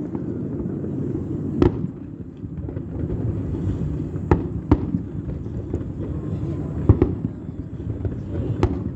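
Aerial fireworks shells bursting: about five sharp bangs at irregular intervals, two of them close together near the middle, over a steady low background rumble.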